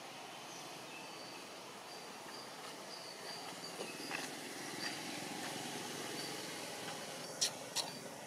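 Outdoor ambience: a steady hiss with faint, short high chirps repeating through the middle, and two sharp clicks close together near the end.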